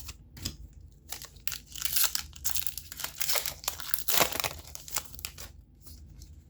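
A Magic: The Gathering booster pack's plastic wrapper crinkling and being torn open, crackling most densely through the middle of the stretch.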